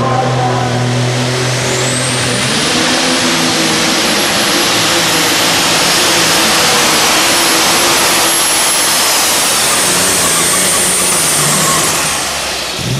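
Modified pulling tractor's engine at full throttle under load, pulling the sled: a loud, steady roar with a thin high whine that comes in about a second and a half in and drops near the end, when the engine noise falls away.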